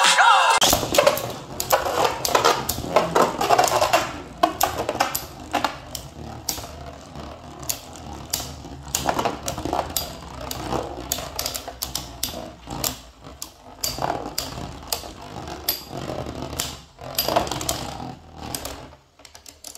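Beyblade spinning tops whirring in a plastic stadium, with many irregular clicks and clacks as they strike each other and the walls. The noise dies away about a second before the end.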